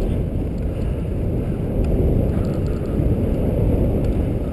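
Dog sled running over a snow trail: a steady low rumble of the runners on the snow, mixed with wind on the microphone.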